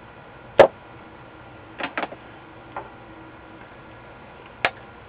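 A few sharp clicks and taps from tools and a circuit board being handled on a workbench: one loud click about half a second in, a quick pair near two seconds, a faint one shortly after, and another near the end.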